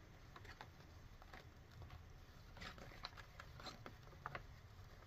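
Faint rustling and small taps of paper as the pages of a handmade junk journal are turned and handled, with a cluster of light clicks about halfway through.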